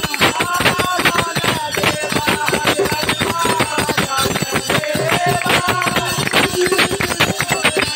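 Devotional group singing over fast, continuous rhythmic clapping and hand percussion.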